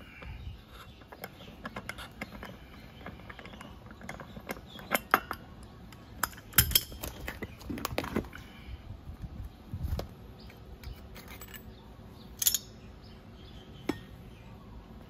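Metal parts of a scooter's CVT clutch clicking and clinking as they are taken apart by hand: the clutch nut, the clutch shoe unit coming off the rear pulley, and the coil spring. Scattered sharp clicks, thickest around the middle, with two louder single clinks near the end.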